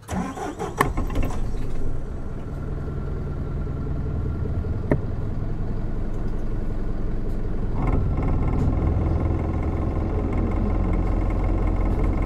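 Isuzu Erga city bus's 4HK1-TCS turbo-diesel inline-four running, heard from inside the passenger cabin: a steady hum with a few knocks in the first two seconds and a sharp click about five seconds in. About eight seconds in, the engine note steps up louder and fuller and stays there.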